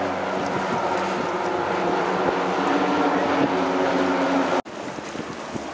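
A formation of light propeller aircraft flying overhead, their engines making a steady, layered drone. The drone cuts off suddenly about four and a half seconds in, leaving a quieter, even noise.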